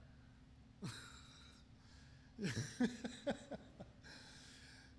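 A man chuckling close to the microphone: a short falling laugh sound about a second in, then a quick run of about five laugh pulses, ending in a breathy exhale.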